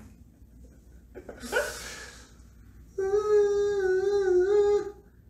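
A man humming one held note for about two seconds, wavering slightly near the end, after a short breathy exhale about a second and a half in.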